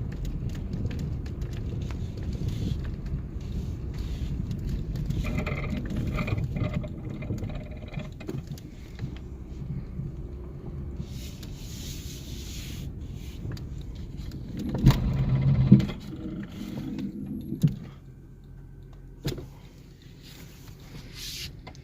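Pressure washer running and spraying water onto a car's body on and off, with a louder clatter about fifteen seconds in.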